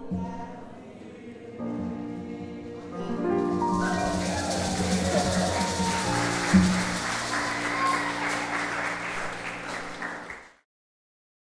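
A congregation singing with piano finishes a praise song, then breaks into applause about four seconds in, with the last held notes of the music under it; the sound cuts off abruptly near the end.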